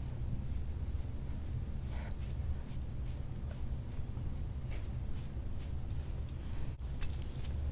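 Soft-tissue massage on a back: faint, scattered rubbing and scraping strokes on skin over a steady low hum.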